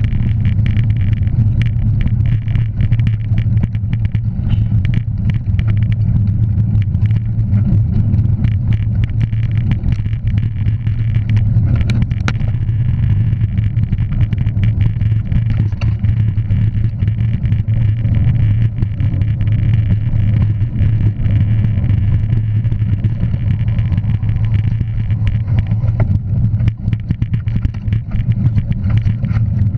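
Motor vehicle on the move: a steady low engine and road rumble, with many short clicks and knocks over it.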